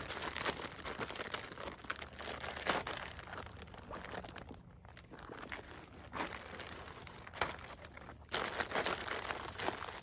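Clear plastic packaging bag crinkling and rustling in irregular bursts as a folded camping chair in its fabric carry pouch is pulled out of it, with a louder stretch of crinkling near the end.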